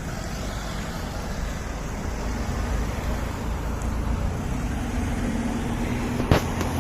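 Steady low rumble of a motor vehicle running, with a single sharp crack about six seconds in.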